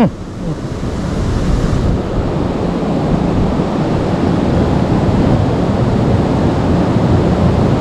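Steady rushing noise of a flowing river, building a little over the first second or two.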